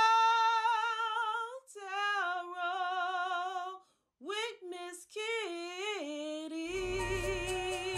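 A woman singing long, wavering held notes with no accompaniment, in a few phrases with short breaks. A low instrumental backing joins her near the end.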